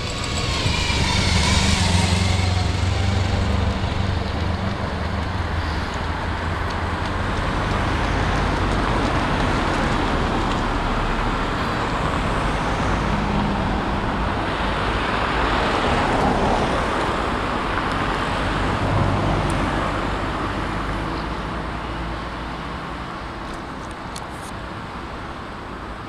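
A touring motorcycle rides past close by, its engine hum loudest about two seconds in and then fading. After that comes steady street and traffic noise, with more engine sound passing twice midway.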